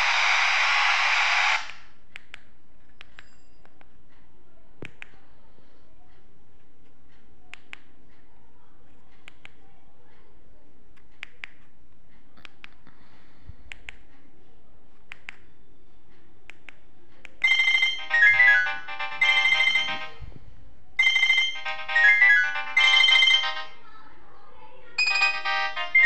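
Itel Ace keypad phone: a hiss of FM radio static that cuts off about a second and a half in, then faint keypad clicks as its menus are worked. About two-thirds of the way in, the phone's built-in ringtones start playing as previews: a synthesized electronic melody in short phrases with brief gaps, and another tone starting near the end.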